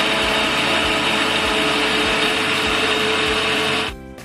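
Electric kitchen mixer grinder running steadily, grinding ginger, garlic and whole spices into a paste, then switched off abruptly about four seconds in.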